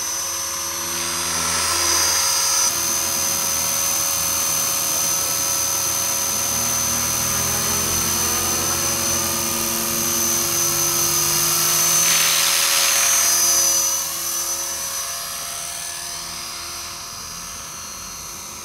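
T-REX HK450 electric RC helicopter hovering: the steady high whine of its Turnigy 2836 brushless motor and gear drive with the spinning rotor. It grows louder about two-thirds of the way through, then drops and stays quieter near the end.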